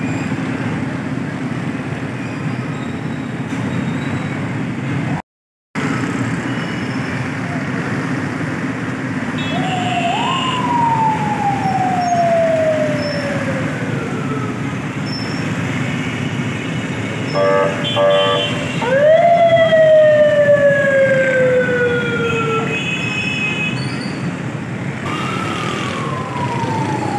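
Siren wailing over steady street noise: three times it rises quickly and then glides slowly down, about ten, nineteen and twenty-five seconds in. A short pulsing horn sounds just before the second wail.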